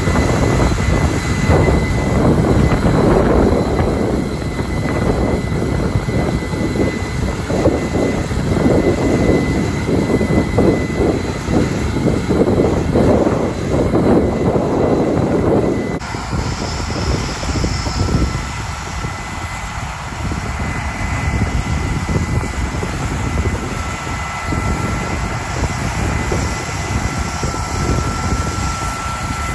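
Case IH 8250 Axial-Flow combine running under load while harvesting corn: a steady, dense machine roar. About halfway through it changes suddenly to a quieter, steady engine sound with a thin high whine, as a tracked tractor pulling a grain cart runs alongside the combine while it unloads.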